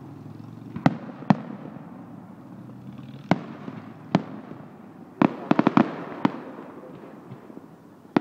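Aerial fireworks shells bursting with sharp booms. There are single reports about a second in, again at about three and four seconds, and then a quick rattle of five or six cracks a little past five seconds.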